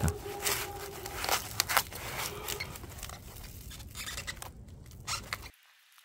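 Hands wrapping insulation and tape around air-conditioner refrigerant pipes: irregular rustling, crinkling and scraping with sharp clicks. It cuts off abruptly about five and a half seconds in.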